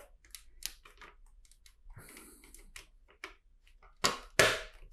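Plastic LEGO pieces clicking and clattering as they are handled on a table, with a short rustle about two seconds in and two louder clatters near the end.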